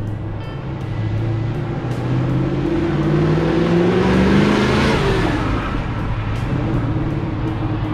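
1969 Chevrolet Nova SS's 350 V8 accelerating toward and past, its engine note climbing as the car nears and loudest about four to five seconds in, then dropping in pitch as it pulls away.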